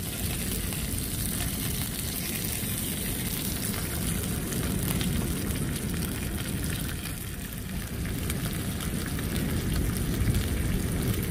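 Pork neck and pork belly sizzling steadily in a grill pan on a portable gas stove, with a fine crackle of spitting fat. A low wind rumble on the microphone runs underneath.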